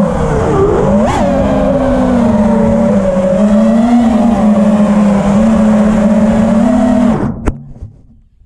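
FPV quadcopter's brushless motors whining steadily, the pitch wavering with throttle and jumping sharply up about a second in. About seven seconds in the motors cut off, followed by a single sharp knock as the drone comes down.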